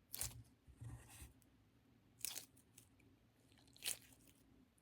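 A foam squishy toy squeezed by hand four times, each squeeze giving a short, soft crackly squish.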